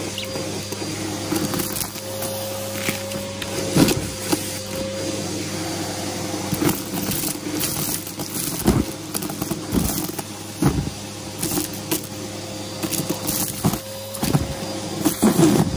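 Aeroswift vacuum cleaner running with a steady motor hum, sucking up crunchy debris that rattles and crackles through it in irregular clicks.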